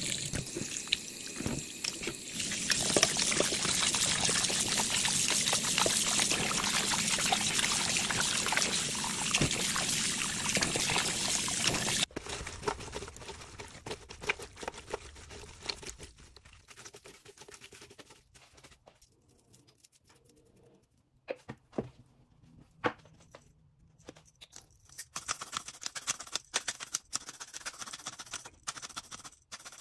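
Kitchen tap running in a steady stream onto raw chicken pieces in a steel bowl as they are rinsed, the water cutting off suddenly about twelve seconds in. After that, only faint scattered clicks and knocks of the chicken being handled in a plastic colander.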